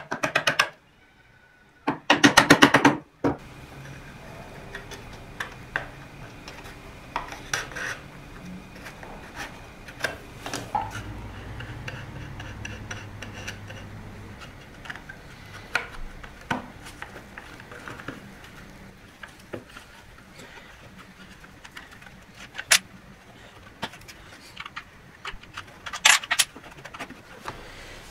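Small wooden box parts being handled on a workbench: scattered light knocks, clicks and taps of wood on wood, over a low steady background. Near the start come two short bursts of rapid clicking, the loudest sounds.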